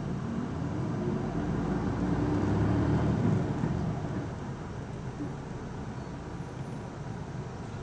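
Isuzu Erga (PKG-LV234L2) city bus heard from inside the cabin: its diesel engine note climbs as the bus accelerates, loudest about three seconds in, then drops back to a steady running drone with road noise.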